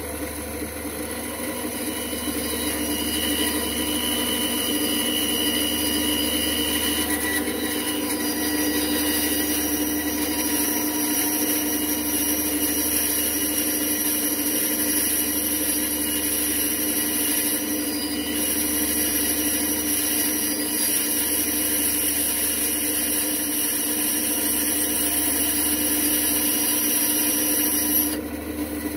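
Bandsaw running steadily, its blade cutting through an aluminium disc, a steady motor hum under the high hiss of the cut. The cutting sound stops suddenly about a second before the end.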